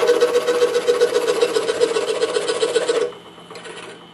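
DeWalt scroll saw running, its reciprocating blade cutting through a thin wooden workpiece with a steady rapid chatter over a hum. About three seconds in the sound falls away sharply to a faint residue.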